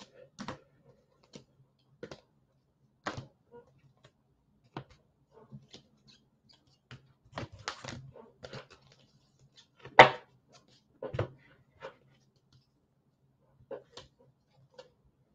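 Scattered light clicks and taps of things handled on a tabletop, irregular and a second or so apart, with the sharpest knock about ten seconds in. A faint steady low hum runs underneath.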